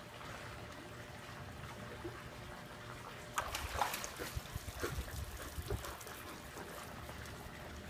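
Faint pool water lapping as a black Labrador swims. About three and a half seconds in, water splashes and streams off her as she climbs out up the pool steps, followed by scattered drips and small splashes.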